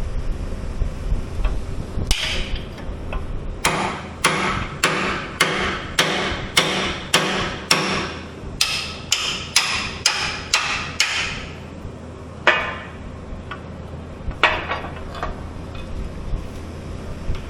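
Hammer blows during axle bushing replacement on a Skyjack SJIII3219 scissor lift: a steady run of about a dozen strikes, roughly two a second, then a few single blows near the end.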